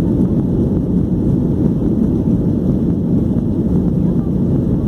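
Cabin noise of a Boeing 737-800 on takeoff: the steady, low-pitched noise of its CFM56-7B turbofan engines and rushing air, heard from inside the passenger cabin.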